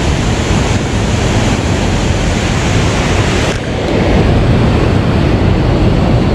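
Steady rushing wind noise with a low rumble, as wind blows across the microphone. Its sound changes slightly about three and a half seconds in, when the hiss gets duller and a little louder.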